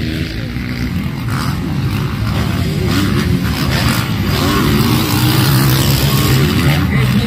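Motocross dirt bike engines revving out on the track, their pitch rising and falling as the riders work the throttle.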